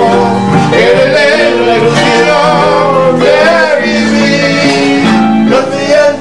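A Casio CTK-711EX electronic keyboard and a classical guitar playing an instrumental passage of a Latin ballad between sung lines.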